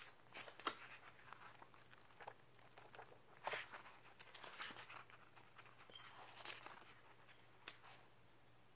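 Pages of a paperback light novel being handled and leafed through: faint, scattered paper rustles and soft taps, a couple of them louder.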